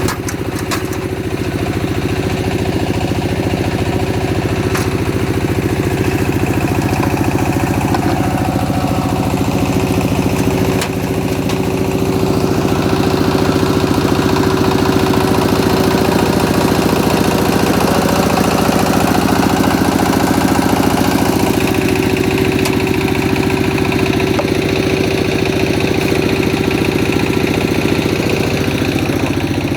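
Engine of a brick-making machine running steadily, with a brief dip in level about eleven seconds in.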